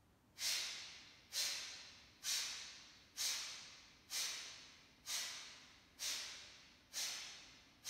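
A man's forceful pranayama breaths puffed out through the nose, nine in a steady row about a second apart, each a sharp hissing puff that fades away.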